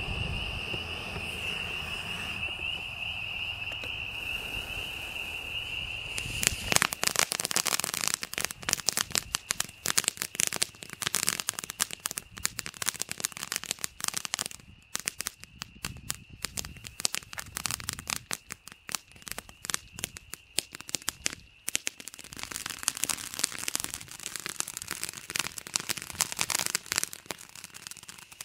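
Consumer firework fountain (Rizer 'Fantasy' colour-changing fountain) firing. About seven seconds in it starts spraying a dense, continuous crackle of rapid pops, which keeps on with a brief lull near the end.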